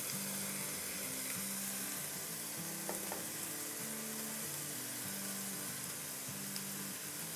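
Small chicken pieces sautéing in oil in a pan: a steady frying sizzle, with two light spatula taps about three seconds in.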